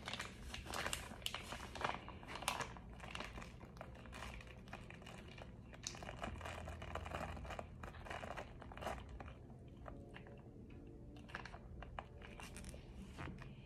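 Close-up mouth crunching and chewing on crunchy food: many sharp crackly bites, thick and quick at first and thinning to occasional crunches after about ten seconds.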